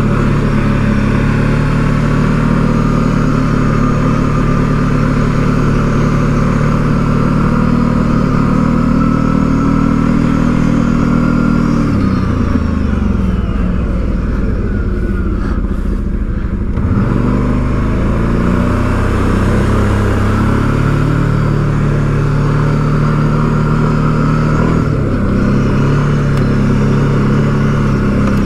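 2021 Kawasaki Brute Force 750 ATV's V-twin engine running under way at a steady pitch. About twelve seconds in the engine note drops as the throttle eases off, then picks back up a few seconds later and holds steady again.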